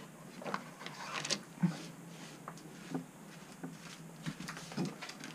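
Lidded enamel pot being slid out over the brick hearth of a Russian oven and carried off in gloved hands: a few scattered light knocks and rubbing sounds.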